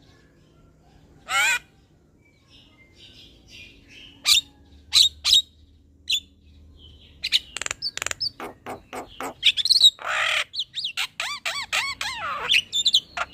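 Javan myna singing: one harsh call, a few scattered sharp notes, then from about seven seconds in a fast, dense run of whistles, clicks and harsh chattering notes, with many rising and falling glides.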